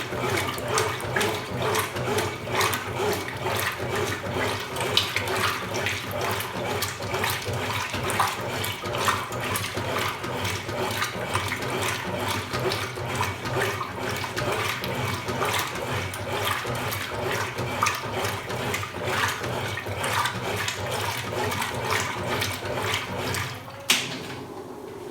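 Water rushing and splashing inside a Consul Supercargo 8 kg (CWL08C) top-load washing machine during its cycle. A sharp click comes about a second before the end, and the sound then drops to a quieter, steadier hum.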